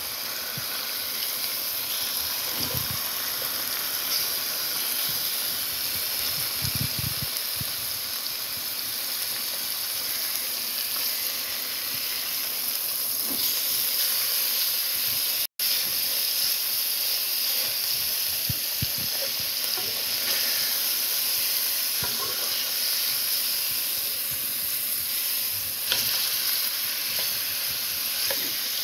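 Steak frying in a pan: a steady sizzling hiss with a few faint pops, cutting out for an instant about halfway through.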